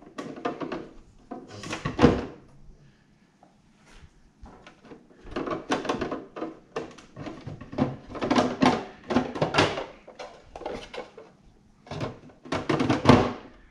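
Plastic parts of a Picobrew Z1 step filter knocking and clattering as its mesh lid is lifted, turned and refitted onto the filter box. The knocks come in clusters, with a lull about three to five seconds in.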